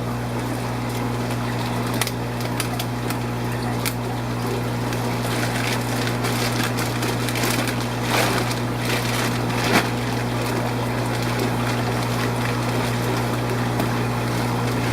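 Steady low hum of fish-room aquarium pumps and equipment, with a few small clicks and knocks scattered through it.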